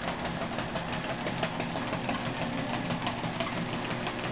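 ProForm treadmill's motor and belt running with a steady hum, with a small dog's paws pattering quickly on the moving belt.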